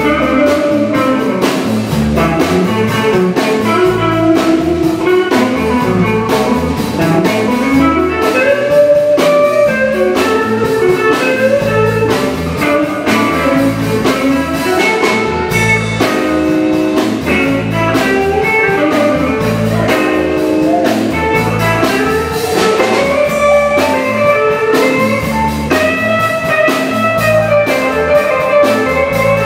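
Live electric blues band playing: electric guitar, electric bass and drum kit, with a harmonica played with cupped hands into a microphone, its held, bending notes carrying over the beat.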